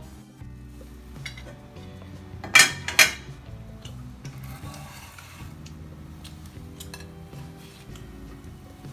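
Two sharp metal clanks about half a second apart as a metal lid is lifted off a frying pan, with faint background music throughout.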